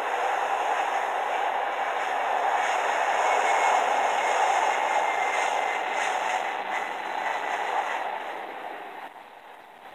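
Jet engines of a FedEx cargo jet at takeoff power, heard played back through a small device speaker and re-recorded, so the noise has no low rumble. It holds steady and loud, then fades away about eight to nine seconds in.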